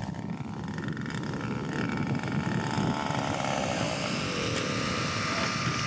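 Radio-controlled scale model airplane engine running steadily as the plane flies past, its pitch sliding down slightly in the middle of the pass.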